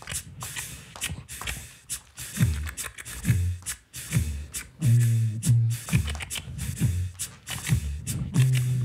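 Human beatbox through a microphone: a steady beat of vocal kick drums and sharp snare and hi-hat clicks, with a low hummed bass note held briefly about five seconds in and again near the end.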